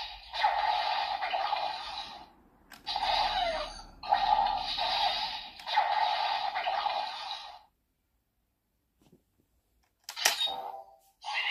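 The small built-in speaker of a Premium DX Memorial Laser Raise Riser transformation toy plays electronic sound effects and voice lines in a run of short repeated phrases. These stop, and after a pause a sharp click about ten seconds in is followed by the toy sounding again.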